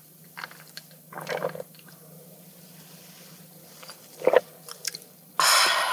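Close-up mouth sounds of sipping and swallowing a shot of liquor from a small glass, with small lip clicks. A short sharp sound comes about four seconds in, and a loud burst of noise about half a second long comes near the end.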